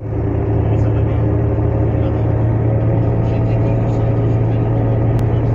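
A boat's engine running steadily under way, a low even drone, with a hiss of water and wind over it.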